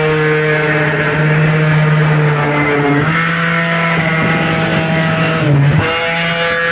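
A vehicle engine running at a steady pitch that shifts slightly about three seconds in and again near the end.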